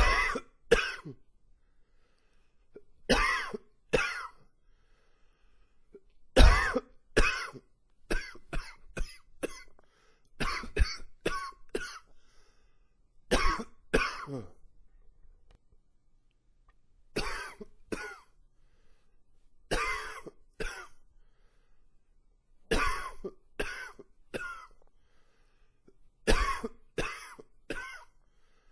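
A man coughing over and over, in bouts of two to five coughs with short pauses between the bouts.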